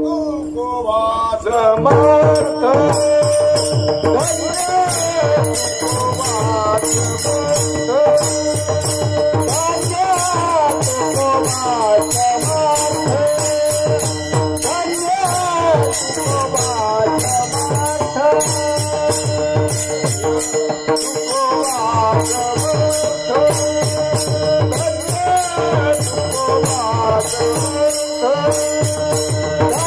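Varkari kirtan music: devotional singing over a steady drone, with a hand drum beating and small hand cymbals ringing in a quick, even rhythm.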